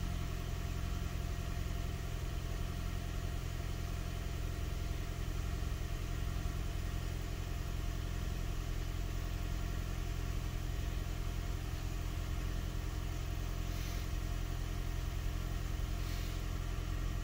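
Toyota Prius V's 1.8-litre four-cylinder petrol engine idling steadily, an even low hum.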